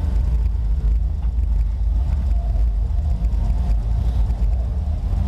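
Wind buffeting the microphone of a handheld camera being carried while walking: a steady, loud low rumble.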